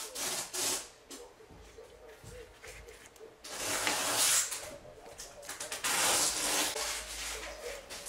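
Rubbing and scraping of cotton-gloved hands working a refrigerator door's plastic wiring connector loose at the hinge. There is a short burst at the start and two longer stretches of about a second each, in the middle and later on.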